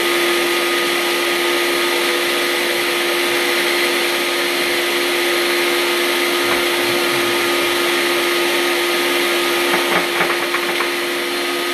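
Countertop blender running loud and steady, blending frozen banana and pineapple chunks with coconut water into a thick smoothie, with a constant motor hum.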